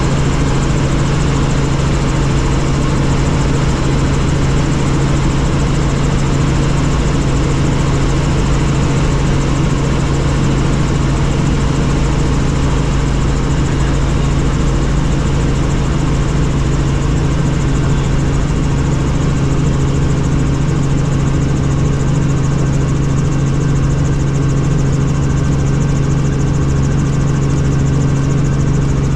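Helicopter running steadily in flight: a loud, constant engine and rotor drone with a strong low hum.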